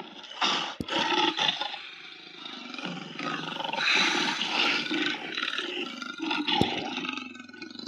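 Creature sound effects for a giant bat monster: a series of harsh, raspy roars one after another, with short gaps and a couple of sharp clicks.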